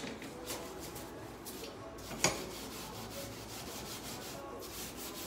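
Steel-wool scourer scrubbing a wet, soapy glass gas hob top, a steady rough rubbing in repeated strokes as the sticky grime is scoured off. A single sharp knock about two seconds in.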